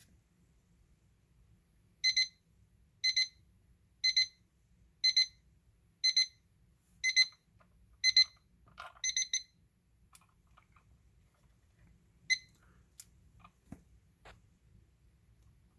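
IKEA KLOCKIS alarm clock's electronic beeper sounding its alarm: a pair of short high beeps about once a second, seven times, then a quicker run of beeps before it stops. A single beep and a few faint clicks follow.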